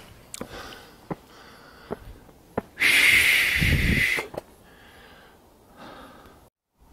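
A hiker's footsteps clicking on granite rock and faint breathing while climbing, with a loud rushing breath through the nose about three seconds in that lasts about a second and a half.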